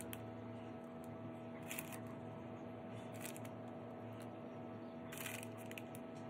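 Faint steady hum, with a few brief soft rustles and clicks of hand handling: near the start, about two seconds in, about three seconds in, and a cluster between five and six seconds.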